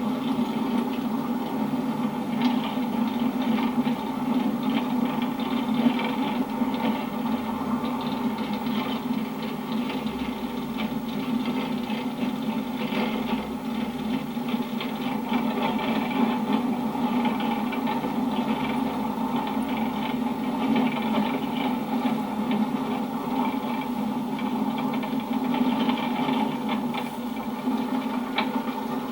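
Car driving on a rough unpaved road: steady engine and road noise with frequent light rattling.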